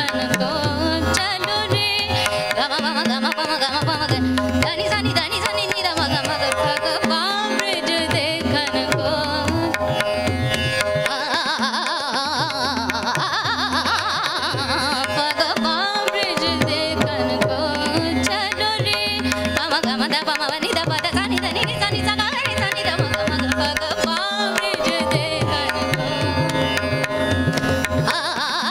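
Indian classical solo singing by a woman, her voice gliding and ornamenting between notes, with tabla accompaniment over a steady drone.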